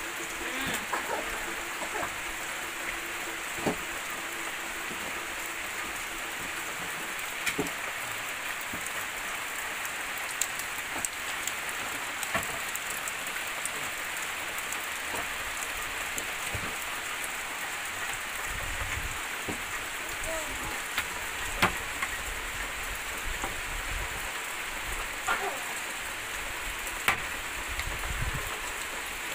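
Steady heavy rain falling on foliage and splashing into standing water, with scattered sharper drip knocks.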